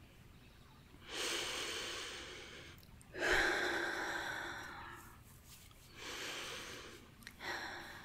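A woman's slow, deep breaths close to the microphone: four long breaths, the second the loudest, each swelling and then fading away.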